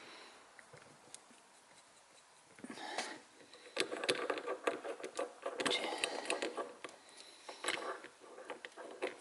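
A bolt being screwed into a small metal brake valve part by hand, with irregular light clicks and scraping of metal parts being handled. It starts about two and a half seconds in.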